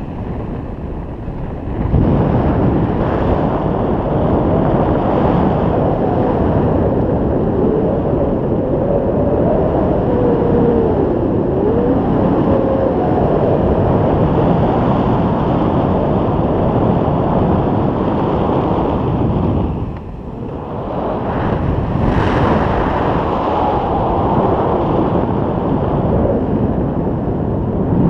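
Rushing airflow buffeting the action camera's microphone in paraglider flight: a loud, steady wind roar that swells about two seconds in and drops briefly about two-thirds of the way through, with a faint wavering whistle in the middle.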